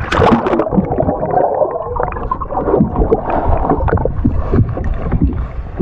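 Splash as the camera goes under the sea surface about at the start, then muffled underwater rushing and gurgling with irregular knocks, heard from the submerged camera.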